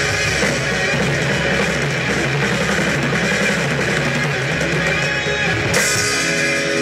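Live rock band playing on electric guitars, bass guitar and drum kit.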